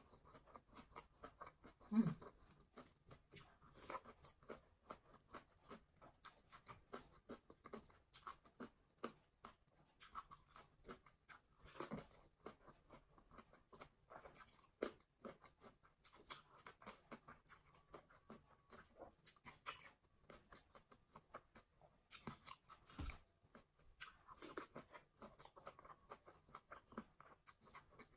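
Faint, close-miked chewing of a mouthful of fried rice and salad eaten by hand: soft crunching with many small clicks a second and a few louder bites scattered through.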